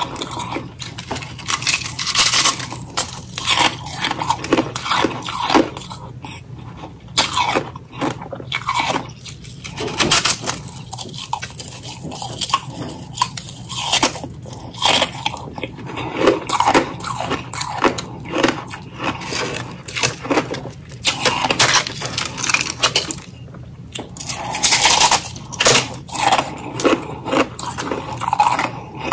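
Close-miked chewing and crunching of ice (freezer frost and hollow ring ice): dense, irregular crunches in runs, with a few brief pauses.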